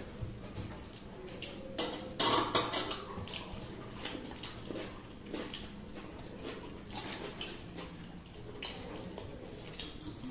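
Two people eating rice and chicken curry by hand from metal plates: wet squishing as fingers mix rice with gravy, chewing and mouth sounds, and fingers clicking and scraping on the plates. The sounds are loudest about two seconds in.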